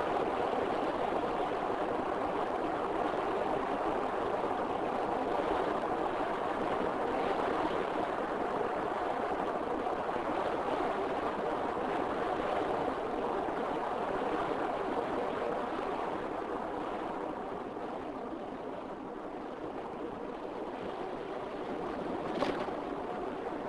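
Steady road and tyre noise of a car driving along a tarmac road, heard from inside the car, easing a little about two-thirds of the way through. A single short click near the end.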